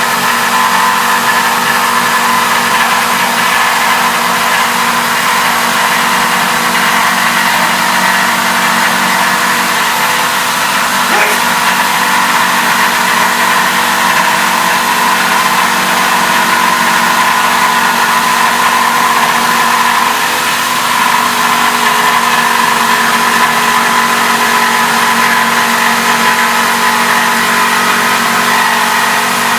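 A loud, steady machine drone with several constant tones over an even hiss, unchanging throughout; a faint click about eleven seconds in.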